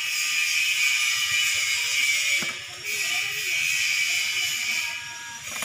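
Metal profile template and trowel scraping over damp sand as the template arm is swept round the mould, a steady hissy scrape with a short pause about halfway through.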